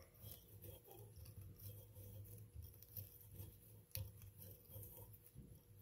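Near silence: faint handling sounds of hands winding material on a fly-tying hook in a vise, over a low steady hum, with one sharp click about four seconds in.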